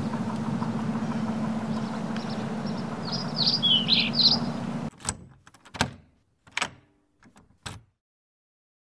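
Outdoor ambience with a steady low hum, and birds chirping about three to four seconds in. The background then cuts out, and about five sharp clicks and knocks follow over some three seconds as a key works a deadbolt lock and the front door is unlatched and opened.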